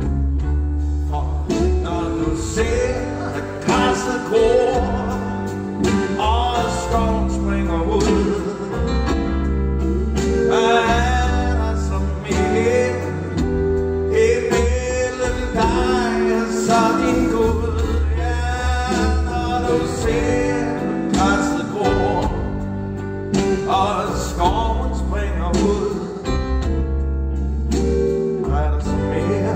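Live pop song: a male singer sings in Danish over a backing band with a strong bass line.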